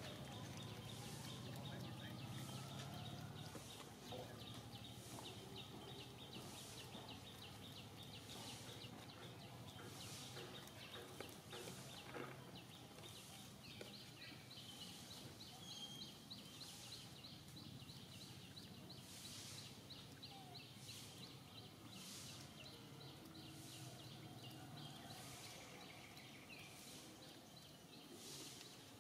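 Faint outdoor background noise, with a rapid high ticking and soft hissing pulses about once a second.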